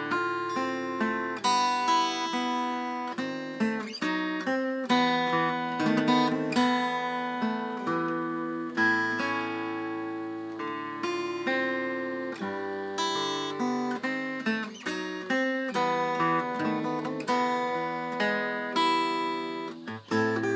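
Acoustic guitar played solo, picked and strummed chords ringing one into the next with no singing.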